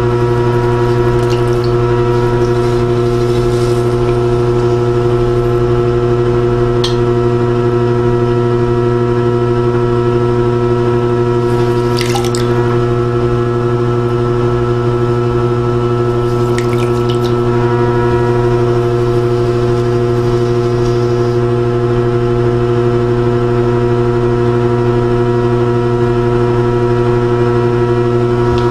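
Electric pottery wheel running with a steady, unchanging motor hum while a soft-clay mug is thrown. A few brief wet sounds of hands and sponge working the spinning clay come about a second in, near seven seconds, around twelve seconds and around seventeen seconds.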